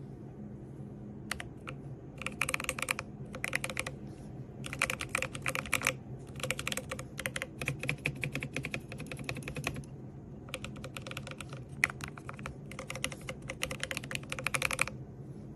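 Mechanical keyboard fitted with HMX Macchiato linear switches being typed on in quick runs of keystrokes, each lasting a second or two, with short pauses between.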